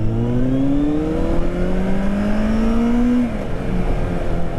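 Sports motorcycle with an aftermarket exhaust accelerating hard under throttle, its engine note climbing steadily in pitch for about three seconds, to around 8,000 rpm. It then drops sharply as the throttle closes or the next gear goes in, and carries on at a lower, steadier pitch.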